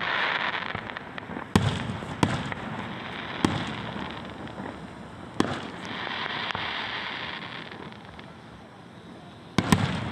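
Fireworks going off: a handful of sharp bangs a second or two apart, with crackling hiss from the bursting shells between them and a loud double bang near the end.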